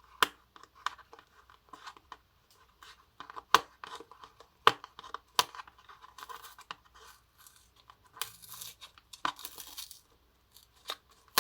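Seal stickers being torn and peeled off a small cardboard earbuds box, with scratching and clicks from fingers handling the packaging and a few short rips, the longest near the end.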